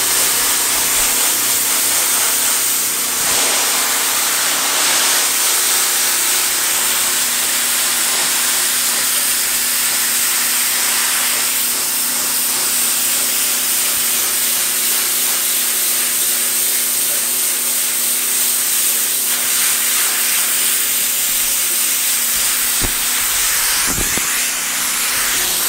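Pressure washer blasting a steady, hissing jet of water onto a scalded hog carcass, stripping the last hair and the outer layer of skin. A steady low hum runs under the spray and fades near the end.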